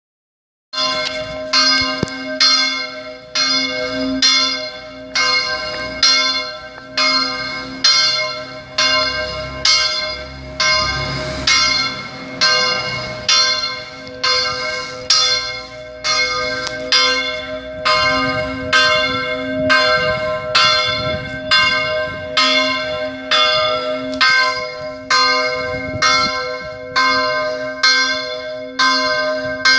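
Large church bell ringing, struck about once a second, its low hum note sounding on between the strokes. It starts about a second in.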